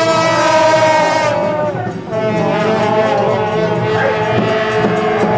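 Live wind-instrument music: loud, long held notes that bend and slide in pitch, with a short break about two seconds in.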